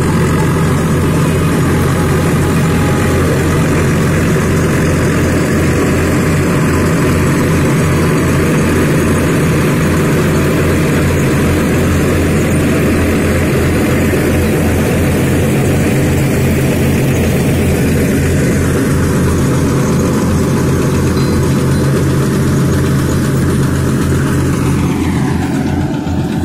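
Swaraj 744 tractor's three-cylinder diesel engine running steadily under load while driving a PTO-powered straw reaper, whose threshing drum and blower add a constant rushing, mechanical noise. Near the end a whine falls in pitch and the sound dips slightly.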